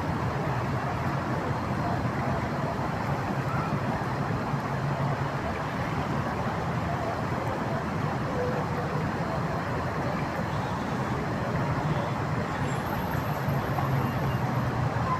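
The Dez River rushing past in a steady, continuous flow.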